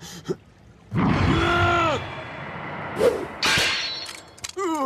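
Anime fight sound effects. About a second in, a loud blow comes with a cry that falls in pitch. Around three seconds in there is a sharp whoosh and hiss.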